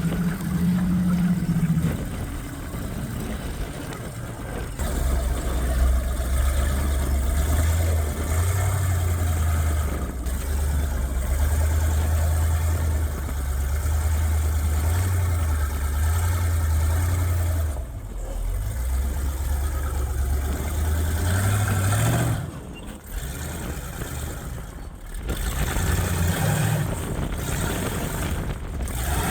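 Side-by-side UTV engine working under load while rock crawling, its revs swelling and easing with the throttle. The revs climb briefly about three quarters of the way through, then drop off into a short lull before picking up again.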